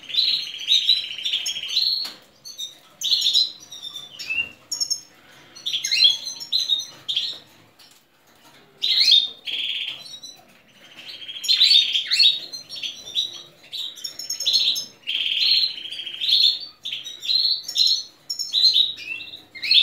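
Canaries chirping and calling: repeated runs of rapid, buzzy high cheeps, with short quieter gaps about two and eight seconds in, and fainter higher trills above them.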